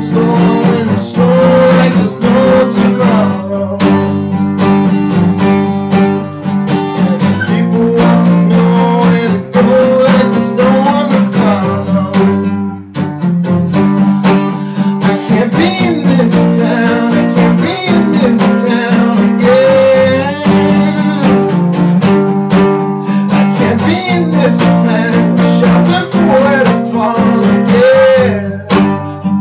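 A man singing to his own strummed acoustic guitar, the chords played in a steady rhythm under the voice.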